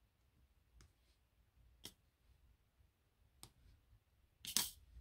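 Small, sharp clicks of a diamond-painting drill pen tapping resin drills onto the sticky canvas, a few scattered taps over the seconds and a louder, slightly longer click near the end.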